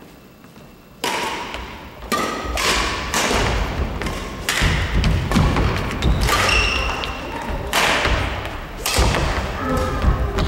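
Badminton doubles rally: rackets striking the shuttlecock in a string of sharp smacks about a second apart, starting about a second in, with players' footsteps thudding on the wooden gym floor.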